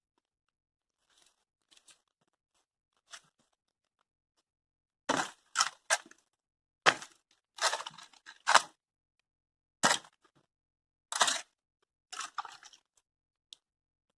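Dry wood and hardened mud cracking and crunching as they are broken and pulled apart, in about nine short sudden bursts from about five seconds in, after a near-quiet start.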